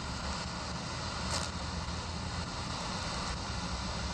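Steady shortwave static and hiss from a Yewrich YU-RU8 portable DSP receiver's loudspeaker as its dial is tuned across the 19-metre band.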